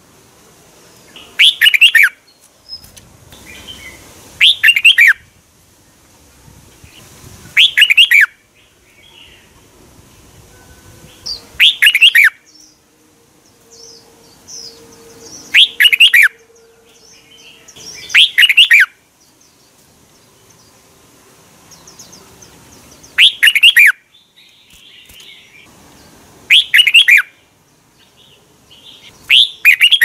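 Red-whiskered bulbul singing: short, loud, fluty song phrases repeated about every three to four seconds, with softer chirps between them.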